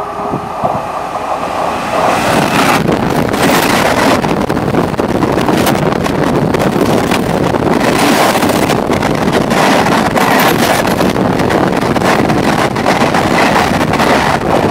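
An Indian Railways WAP-4 electric-hauled Yuva Express passenger train passes close by at about 130 km/h. Its loud rush builds about two seconds in and stays high as the coaches sweep past, with a rapid clatter of wheels over the rails and the wind blast buffeting the microphone.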